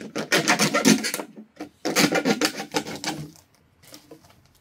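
A knife sawing and scraping into a plastic drink bottle, the plastic rasping and crackling in two spells of quick strokes before it dies down near the end.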